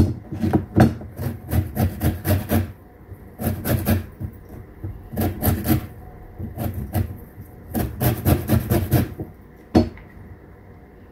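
Lemon rind being rasped against a box grater in quick scraping strokes, five runs broken by short pauses. A single sharp knock comes near the end.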